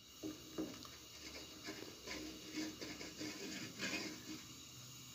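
A spoon stirring milk that is being reduced to khoya in a steel pot, with irregular scrapes and knocks against the pot.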